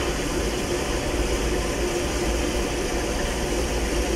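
Steam locomotive venting steam around its cylinder: a steady hiss with a faint low hum beneath it.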